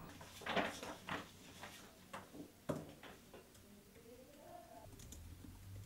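Quiet handling sounds, a few soft clicks and rustles, likely from a photo album being held and its pages moved. A short rising tone follows about two-thirds through.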